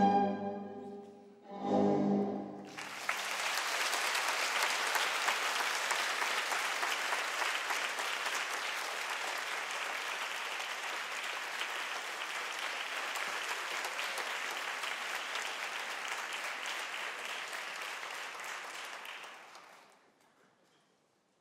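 Orchestral ballet music ending on a short final chord, followed by audience applause that runs steadily for about seventeen seconds and fades away near the end.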